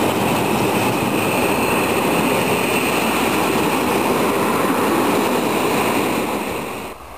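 Freight train of tank wagons rolling past close by: a loud, steady rush of wheels on rail with a high steady tone over it. It falls away abruptly near the end as the last wagon goes by.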